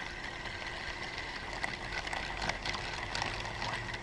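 Steady thin whine and low hum of a small boat's electric trolling motor, with a few short clicks and rattles of a spinning reel being cast and cranked through the middle.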